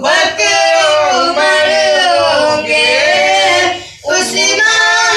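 A boy singing an Urdu naat unaccompanied in long, drawn-out melodic phrases, with a short break for breath about four seconds in.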